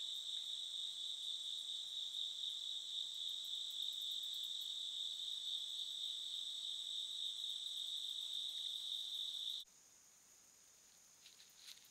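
Steady, shrill chorus of night insects, a continuous high buzz that cuts off abruptly about ten seconds in, giving way to a fainter, higher insect buzz with a few soft ticks near the end.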